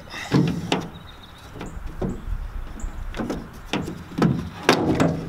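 Plastic tail light housing of a Ford F-250 being worked loose by hand, giving a series of sharp knocks and scrapes against the truck body, about eight in all.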